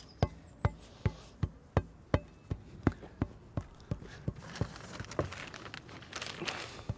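Builder's tamper (elephant's foot) thudding repeatedly on freshly filled loam in a bowler's foot hole, about three strikes a second, firming and sealing the repair. The strikes grow softer in the second half, with some scuffing between them.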